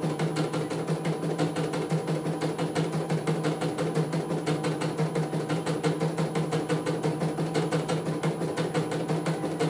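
CNY E900 computerized embroidery machine stitching a design: a steady motor hum with a fast, even run of needle strokes.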